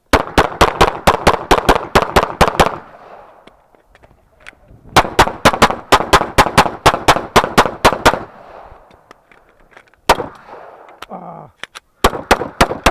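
Rapid semi-automatic pistol fire: strings of sharp shots at about five a second, broken by a few seconds' pause after roughly the third and the eighth second before firing resumes.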